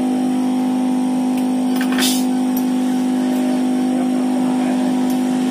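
A steady machine hum with a clear, unchanging pitch. About two seconds in there is a sharp click, with a few fainter ticks, as small screws are worked into a phone's frame with a hand screwdriver.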